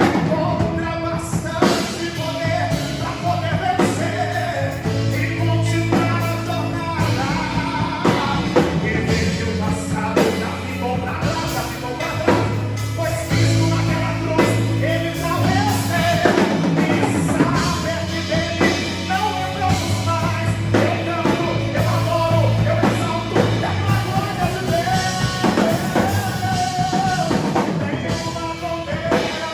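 Live gospel band playing a song, with a sung melody over a drum kit and sustained low notes.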